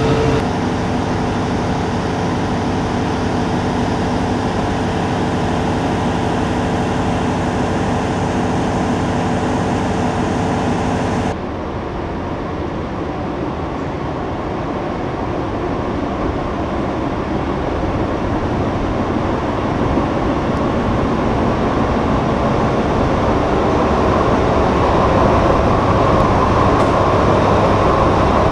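DB class 601 TEE diesel trainset: first the standing power car running close by, a steady hum with several fixed tones, then, after a cut about eleven seconds in, the train approaching along the platform, its noise growing louder as it nears.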